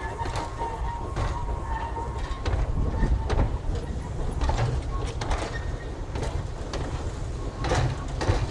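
Narrow-gauge steam train of empty four-wheeled slate wagons rolling away, with irregular clanks and clicks from the wagons and running gear over a low rumble.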